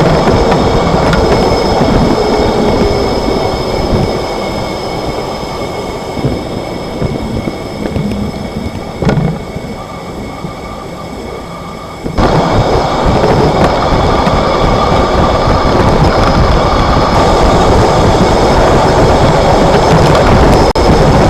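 Cabin noise of a 2025 Chevrolet Silverado 1500 Trail Boss pickup on the move: a steady road and driveline rumble with a few short knocks. The owner attributes these knocks to excessive leaf-spring clunking that can be felt through the floor and seat. The noise eases off through the middle and comes back suddenly louder about halfway through.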